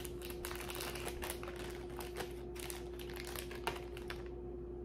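Rustling and light clicks of jewelry and its wrapping being handled, a rapid irregular patter that stops shortly before the end, over a faint steady hum.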